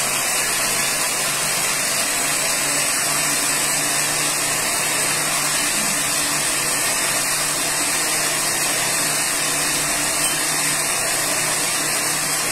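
Countertop blender running steadily at full speed, puréeing walnuts with milk and sour cream into a thick nogada sauce.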